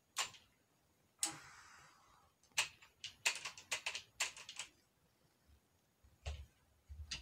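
Small metal AR-15 lower-receiver parts being handled: sharp separate clicks, a short scrape about a second in, and a quick run of clicks around the middle.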